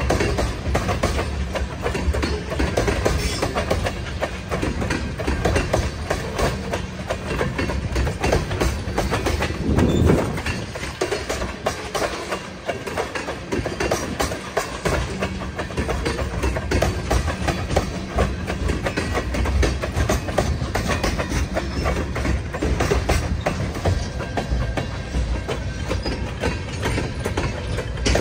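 Train cars rolling past, their wheels clattering steadily over the rails, with one louder knock about ten seconds in.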